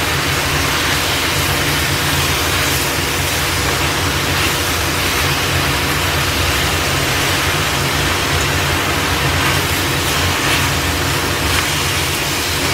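Lettuce stir-frying in a hot stainless steel pan: a steady loud sizzle of the wet leaves in hot oil, with a few light scrapes of the wooden utensil turning them.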